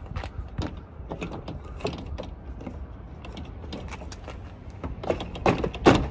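Car door trim panel being worked loose by hand: a run of sharp plastic clicks, creaks and knocks as its push-in retaining clips are tugged, getting louder with a cluster of snaps near the end as the panel is pulled away from the door.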